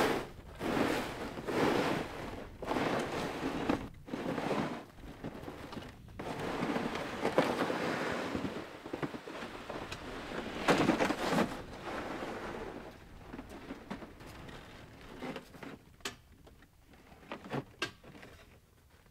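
A plastic sled being dragged across snow, its hull hissing and scraping, with footsteps crunching in the snow. The noise comes in pulses about a second apart at first, then runs on steadily, and dies down with a few sharp knocks near the end as the sled comes to rest.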